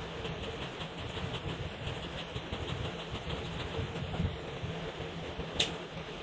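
Felt-tip markers scratching over paper in quick back-and-forth coloring strokes, about four a second, with a single sharp click near the end.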